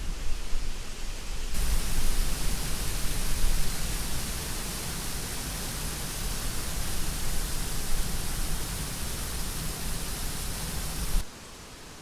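Small waterfall cascading over mossy rocks: a steady rush of water that cuts in suddenly about a second and a half in and stops abruptly near the end. Before and after it there is only a quieter background hiss with a low rumble.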